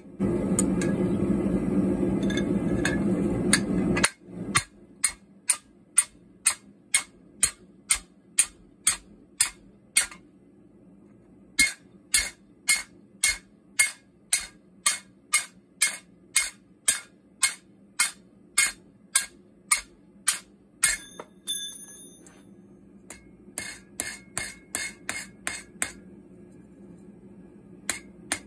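Hand hammer striking a drift through a hot steel bar on a thin steel swage plate: steady sharp blows about two a second, then after a short metallic ring a quicker run of lighter blows near the end. A loud steady rushing noise fills the first four seconds before the hammering.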